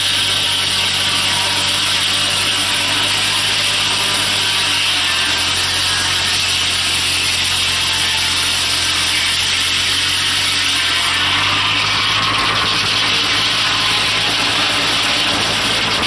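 Foley Belsaw circular sawmill blade ripping through a log, a loud, steady, high sawing rasp, with the tractor engine running steadily underneath; the low engine note shifts about eleven seconds in.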